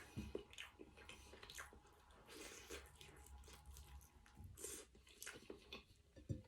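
A person chewing food, faintly: irregular soft mouth clicks and smacks.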